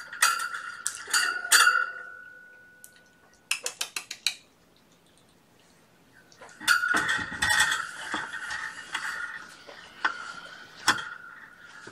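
Jingling, clattering cat toy batted by a kitten: runs of quick taps with a ringing note that fades out about three seconds in, a short burst of taps near four seconds, a quiet pause, then more jingling and clattering from about six and a half seconds.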